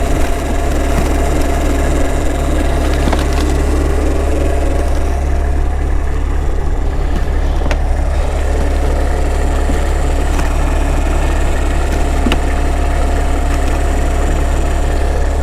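Truck engine idling steadily with a deep, constant hum.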